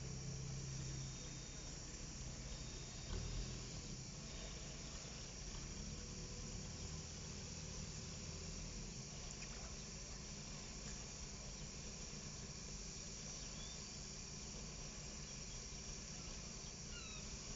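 Steady high insect chirring, typical of crickets in the grass. Beneath it is the low hum of a small diesel shunting locomotive running at a distance, which fades about a second in.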